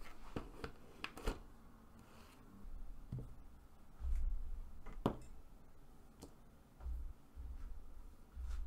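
Handling noise: scattered light clicks and taps, with a few low bumps.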